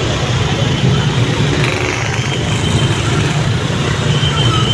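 Bus engine running with a steady low rumble; no telolet horn sounds.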